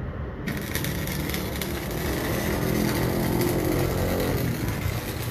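MIG welder arc crackling and hissing as it lays weld onto a 50 mm steel shaft turning in a lathe, the arc striking about half a second in and then running steadily. A steady low hum runs underneath.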